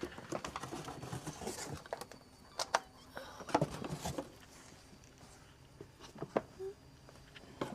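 Irregular light clicks, taps and rustling of small objects being handled and set down on a work table, with a few sharper knocks in the middle.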